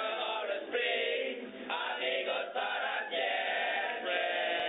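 A group of boys chanting together in unison, their voices held in long drawn-out sounds, as in a group voice-practice drill.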